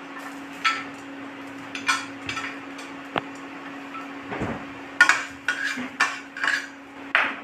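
Metal spatula scraping and clinking against a stainless steel pan while stirring ginger in oil. The clinks come more often in the last couple of seconds, over a steady low hum.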